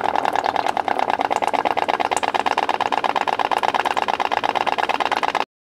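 Pop pop (putt putt) steam engine made from an aluminium drink can with straw tubes, running in water over a candle flame. It gives a rapid, even putt-putt pulsing of more than ten pops a second, which cuts off suddenly just before the end.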